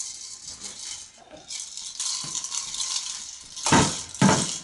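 Plastic toy maracas shaken by a toddler, a steady rattle of the beads inside, then two loud knocks near the end as the maracas hit a toy drum.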